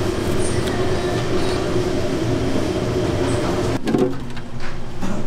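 Steady machine hum with an uneven low rumble underneath. It breaks off abruptly about four seconds in and then resumes.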